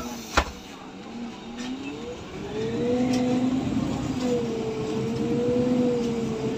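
MAN Lion's City CNG city bus heard from inside the passenger cabin, driving on its compressed-natural-gas engine: a sharp knock shortly after the start, then about two seconds in the engine and drivetrain note rises in pitch as the bus accelerates and holds fairly steady, slightly wavering.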